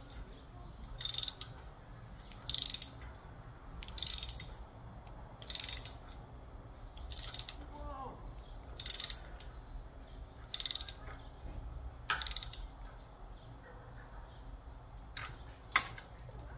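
Hand ratchet wrench clicking in short bursts about every second and a half as its handle is swung back between strokes, running breather bolts down snug, with a sharper click near the end.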